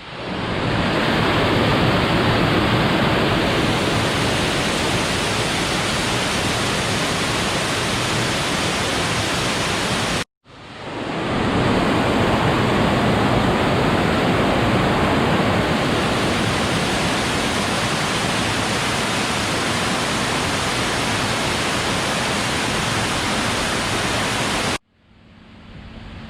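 Trahlyta Falls waterfall rushing, loud and steady. The sound breaks off for an instant about ten seconds in, and near the end drops away to a much quieter background.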